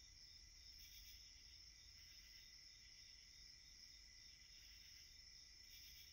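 Near silence, with a faint, steady chorus of insects trilling high, swelling and fading slightly about once a second.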